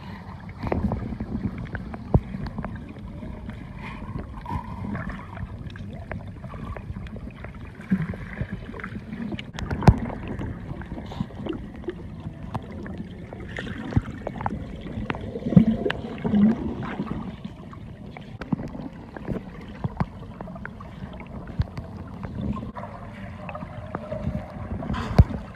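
Muffled underwater water noise as swimmers move through the water: a low rushing and bubbling, broken by irregular knocks and clicks, the sharpest about ten seconds in and near the end.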